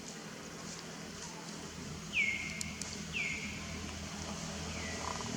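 Three short, high calls, each sliding down in pitch, about a second apart, the last one fainter, over a low outdoor background.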